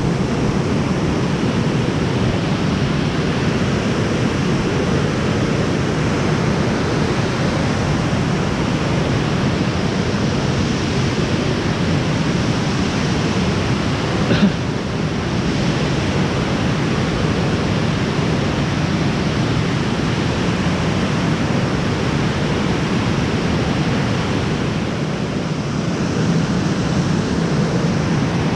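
Steady rushing of fast-flowing floodwater through whitewash, an even unbroken noise, with one short click about halfway through.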